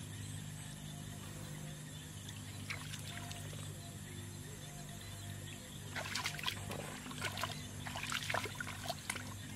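Water splashing, sloshing and dripping in a shallow muddy pool as a person wades and works the mud by hand. The splashes come as a burst of irregular sharp splashes from about six seconds in, over a steady low hum.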